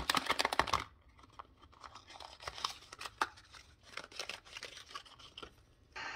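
Handling and opening of a small cardboard parts box holding a Yamaha thermostat: rustling, crinkling packaging and small clicks, loudest in the first second, then softer and scattered. Plucked-string music starts right at the end.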